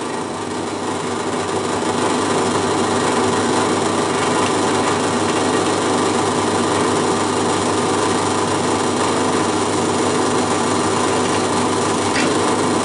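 Bench drill press running steadily, its motor giving a constant hum while the bit is fed into a plastic project box.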